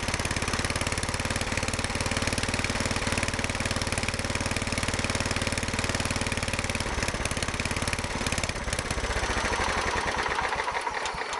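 Kohler Command 12.5 hp single-cylinder engine running steadily. About seven seconds in its low, even note thins out and turns uneven.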